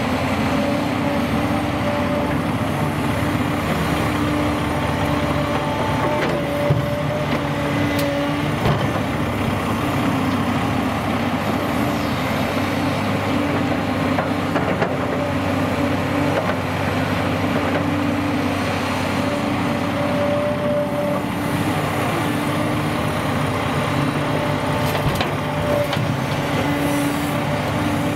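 Volvo EC210B excavator's diesel engine working under load, with a hydraulic whine that swells and fades every few seconds as the boom and bucket dig and swing. There are a few light knocks from the bucket and dirt.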